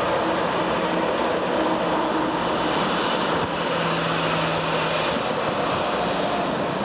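Steady roar of a four-engined Airbus A340-300's CFM56 jet engines as the airliner rolls along the runway close by.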